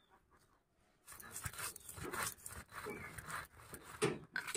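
Stone roller being rubbed back and forth over dried red chillies and whole spices on a flat grinding stone (shil-nora), crushing them with rough scraping and crackling strokes that start about a second in.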